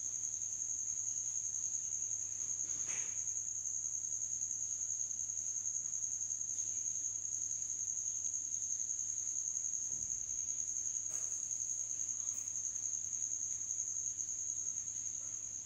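A steady high-pitched whine that does not change, with a faint low hum beneath it and a few faint scrapes.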